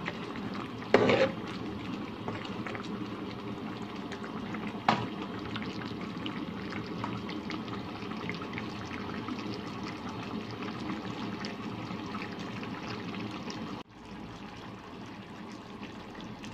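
Coconut-milk vegetable stew simmering in a frying pan, its thick sauce bubbling with a steady run of small pops. A short knock about a second in and a sharp click near five seconds stand out above the bubbling.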